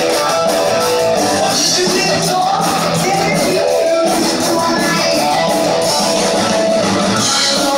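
Heavy metal band playing live: distorted electric guitar and bass over drums with crashing cymbals, loud and steady without a break.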